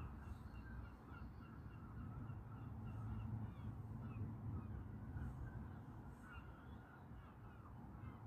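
Faint bird calls, short and repeated several times a second, over a low steady rumble.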